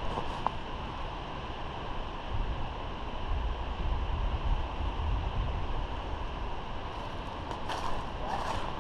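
Steady low rumble and hiss of wind on the microphone, with a few faint short clicks near the end.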